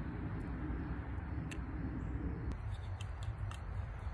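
Low outdoor background noise, a steady low rumble, with a few faint light clicks scattered through it.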